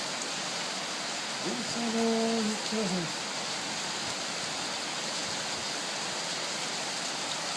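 Heavy rain falling steadily, an even hiss throughout. A person's voice is heard briefly about two seconds in, holding a tone and then falling.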